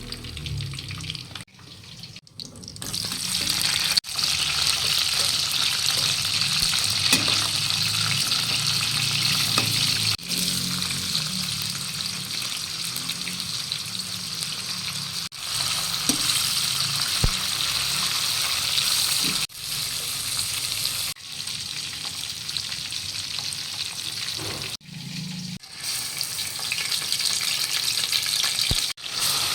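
Food sizzling in hot oil in a pan while it is stirred, a steady hiss that breaks off abruptly and resumes several times.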